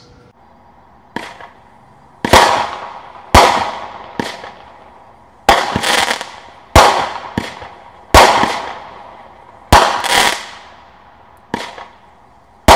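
Brothers 'Town Talk' seven-shot aerial firework cake firing: a string of sharp bangs about a second or so apart, each dying away over about a second, with a few fainter pops between them.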